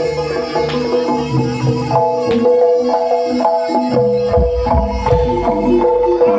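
Live Javanese jaranan gamelan music: hand drums playing a busy rhythm under struck metal keyed instruments and held melodic notes.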